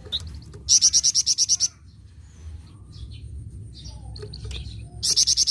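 Flamboyan bird giving its rapid chattering 'nyecret' call: a burst of quick high notes, about ten a second, lasting about a second, then softer chirps, then a second burst near the end.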